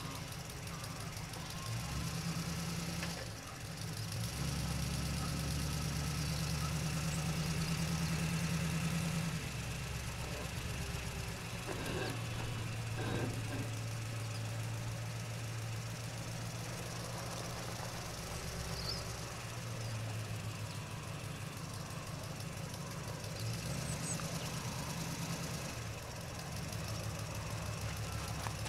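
A low, steady engine-like rumble that shifts pitch in steps every few seconds, with two sharp clicks about halfway through.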